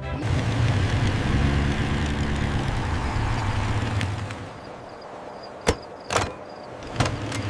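A low mechanical rumble with a rushing hiss that sounds like a running vehicle, lasting about four and a half seconds before it drops away. Three sharp knocks follow.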